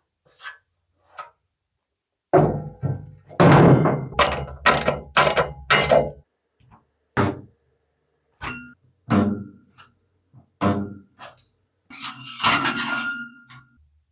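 A series of sharp knocks: a fast run of loud strikes about two a second, then single knocks roughly a second apart, and a longer rattling clatter near the end.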